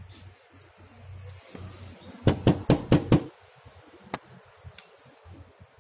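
Knocking on a door: a quick run of about five knocks about two seconds in, then a single knock about four seconds in.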